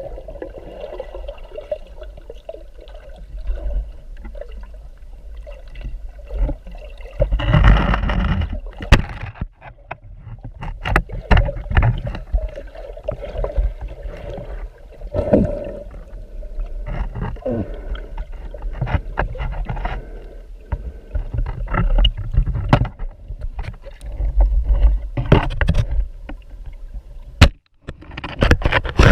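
Water sloshing and gurgling around a swimmer, with scattered sharp knocks and clicks and a steady deep rumble; louder swells of water noise come and go.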